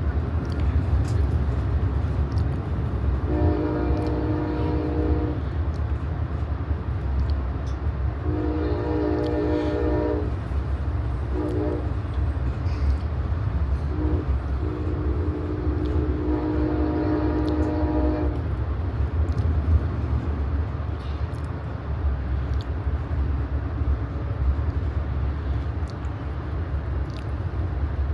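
Diesel locomotive's air horn sounding the grade-crossing signal of two long blasts, a short one and a final long one, over the steady rumble of the train running on the rails.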